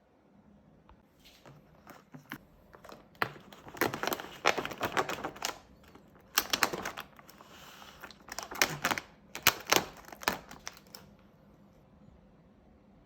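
Rapid crinkling and clicking handling noises in irregular clusters, loudest in the middle, dying away about two seconds before the end.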